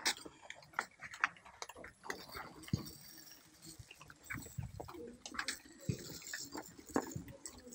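Quiet, irregular clicks, taps and crinkles of packaging being handled: a small cardboard box and the plastic bag around a plug-in power adapter, as the adapter is taken out.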